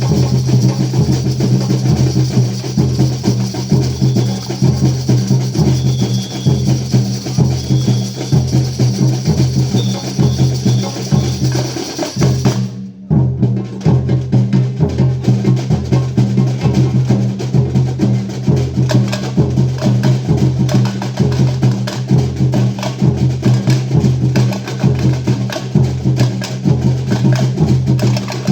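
A band playing an instrumental passage, with percussion keeping a steady beat under low sustained notes. The music breaks off for a moment about thirteen seconds in, then carries on.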